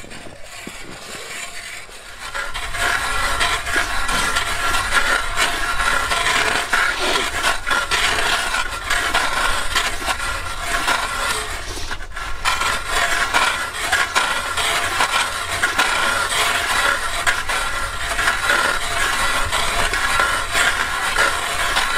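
Hand-cranked ice auger grinding and scraping down through the ice, its blades shaving it into slush. The drilling starts about two seconds in, pauses briefly around halfway, then goes on steadily.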